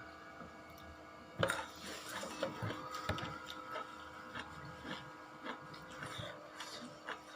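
Eating raw vegetables: irregular crisp crunches and clicks, starting about a second and a half in, over a faint steady background tone.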